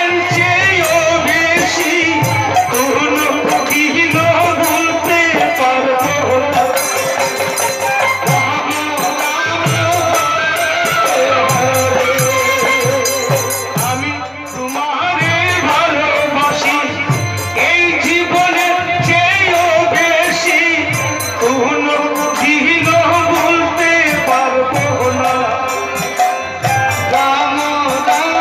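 Bengali Hari-naam kirtan sung by a group of male voices over a steady khol drum beat and jingling hand cymbals, with a brief dip in the music about halfway through.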